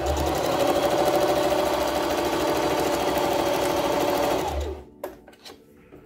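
Electric sewing machine stitching steadily, topstitching down the folded end of a fabric strap, then stopping after about four and a half seconds; a few light clicks follow.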